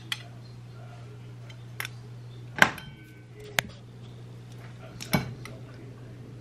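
Several sharp knocks and clinks of a ceramic bowl and a glass olive-oil bottle being handled, over a steady low hum. The loudest knock, about two and a half seconds in, rings briefly, and another follows near five seconds.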